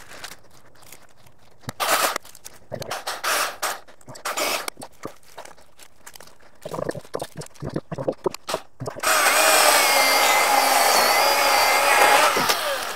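Irregular rustles and snaps for most of the stretch, then a Milwaukee M18 cordless electric chainsaw runs for about three seconds near the end: a steady high whine of motor and chain, wavering slightly as it cuts into a dry dead maple limb, with no engine note.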